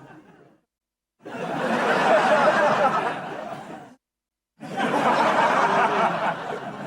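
Canned TV laugh track: a studio audience laughing together in separate bursts of about three seconds, with abrupt dead-silent gaps between them. The first fades out within the opening half second, then two full bursts follow, one about a second in and one near the two-thirds mark.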